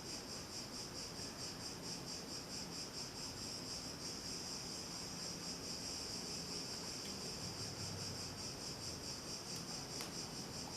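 Crickets chirping steadily in the background, a constant high pulsing trill.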